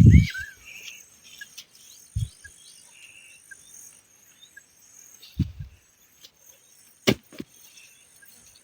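Quiet rural outdoor ambience with faint scattered bird chirps and calls. A few short dull thumps break it about two seconds in and again around five and a half seconds, and there is one sharp click about seven seconds in.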